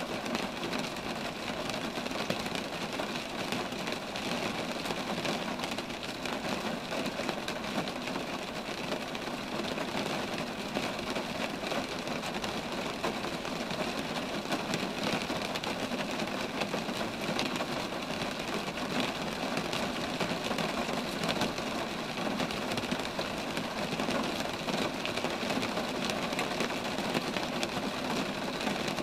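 Steady rain falling on roadside trees, a dense patter of drops that does not change.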